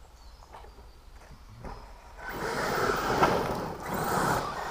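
Radio-controlled car driving over a dirt track: about two seconds in, the motor and the tyres churning the dirt get loud, with a brief dip shortly before the end.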